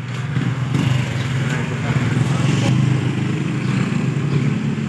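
A motorcycle engine running steadily, swelling a little around the middle.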